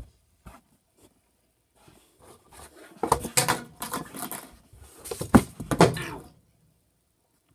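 Rustling and clattering of things handled close to the microphone, in two loud bouts of about a second and a half each, starting about three seconds in.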